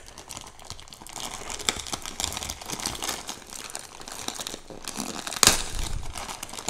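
Plastic mailer bag crinkling and crackling as fingers pick and peel at its packing tape, with one sharp, louder crack about five and a half seconds in.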